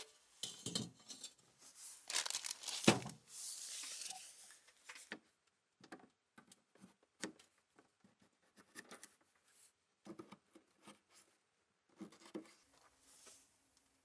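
Plastic zip-lock bag crinkling as potatoes are handled, then a kitchen knife slicing through a potato onto a plastic cutting board in a string of short, irregular knocks.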